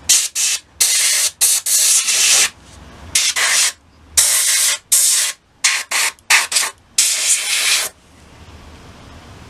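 Airbrush blowing short, repeated blasts of high-pressure air to knock loose weathering pigment off a model's wheel and hub. About a dozen hisses, from a split second to about a second each, with brief gaps between them; they stop near the end.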